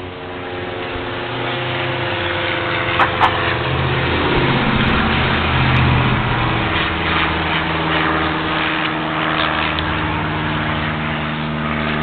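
An engine running steadily, growing louder over the first several seconds and shifting in pitch around the middle. Two sharp clicks about three seconds in.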